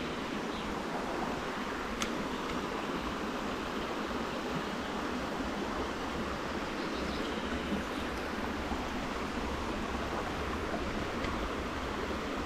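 Steady rush of flowing stream water, with a single faint click about two seconds in.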